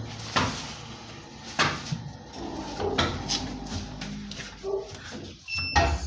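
A few separate knocks and clunks from hands-on work around a steel car wheel, with a louder clunk near the end.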